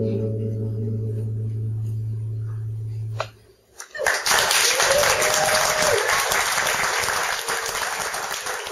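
Acoustic guitar's final chord ringing out, stopped after about three seconds. After a brief pause the audience breaks into applause, with one cheer a second or two into it.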